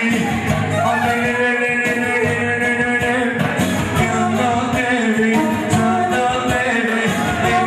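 Loud amplified dance music with a man singing into a microphone over a steady beat.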